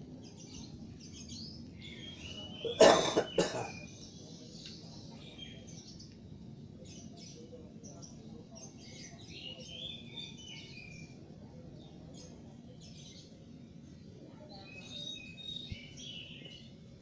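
A single cough about three seconds in, the loudest sound. Faint high chirps, like small birds, come and go.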